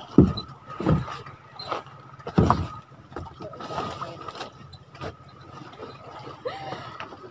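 Heavy thumps and knocks against the wooden hull and boards of a small boat as people step about and shift a large cloth-wrapped tuna. Three loud thuds come in the first two and a half seconds, then lighter knocks.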